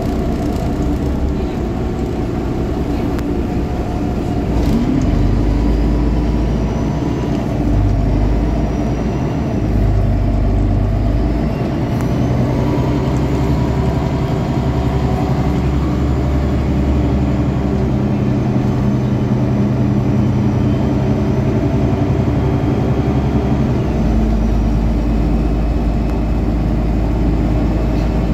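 City bus's rear-mounted engine, heard from the seats right beside it, running steadily as the bus drives along. Its pitch shifts several times with changes in speed and load, with a faint high whine above it.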